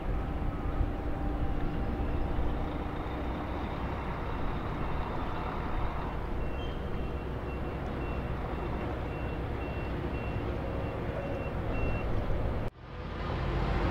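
A vehicle's reversing alarm beeping about twice a second, starting about six seconds in and stopping near the end, over a steady low engine rumble. Near the end the sound cuts out abruptly and comes back.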